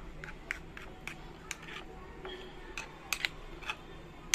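Metal spoon clinking against a glass bowl while stirring spice powders into yogurt: a string of irregular light clicks, with a louder one near the end.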